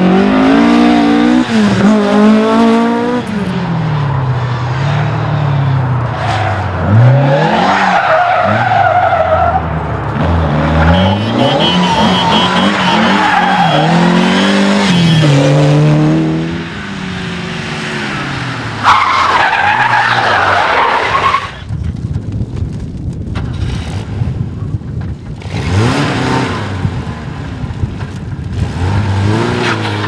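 Rally car engines driven hard, a Ford Escort Mk2 first, revving up and dropping back again and again through gear changes and lifts as cars pass one after another. Tyres skid on the tarmac in places.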